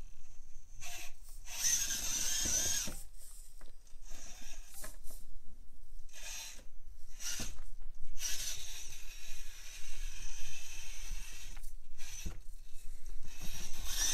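Brushless outrunner motor of a 1/24-scale micro RC rock crawler whining in stop-start bursts as it is throttled over rocks, with light knocks from the truck on the course.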